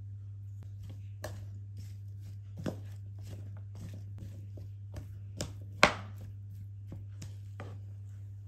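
Kitchen knife chopping on a cutting board in irregular, separate strokes, with one sharper knock about two-thirds of the way through.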